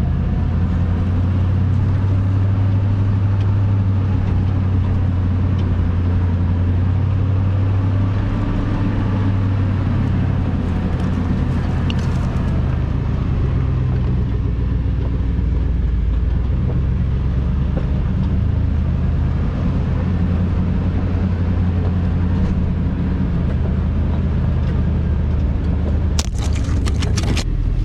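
A 2001 GMC Sierra 2500HD pickup's engine running steadily as the truck drives a rough jeep trail, heard from inside the cab. A quick run of sharp clicks or rattles comes near the end.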